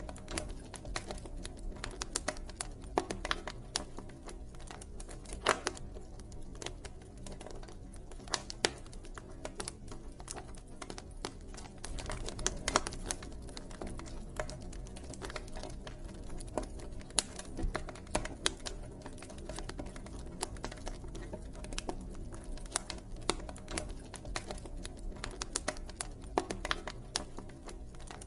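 Campfire burning: wood crackling and popping in irregular sharp snaps, a few louder than the rest, over a low steady rumble.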